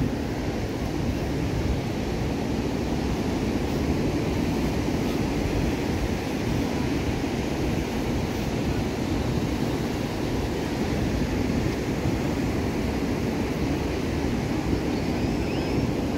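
Steady surf of waves breaking along a sandy beach, with wind buffeting the microphone.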